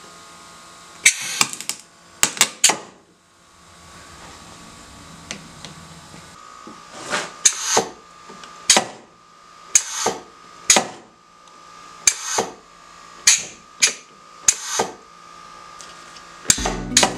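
DIY pneumatic press cycling: a series of short, sharp air hisses at irregular intervals from the air valve and cylinder as the plywood platen is driven down and let back up. A faint steady tone runs underneath.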